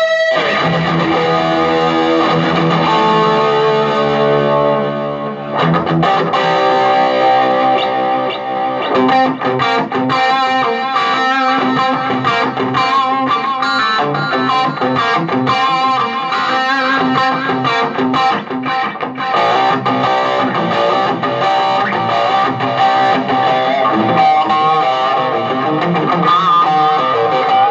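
Electric guitar played through a Marshall MG15 15-watt practice amp: a chord is left ringing for the first five seconds or so, then quick picked single-note licks and riffs follow.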